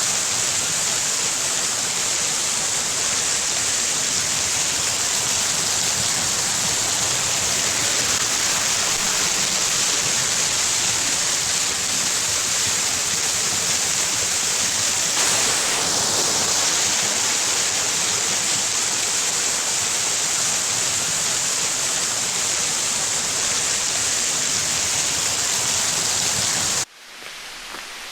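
Waterfall rushing, a steady loud pour of falling water. Near the end it cuts off abruptly to a much fainter hiss.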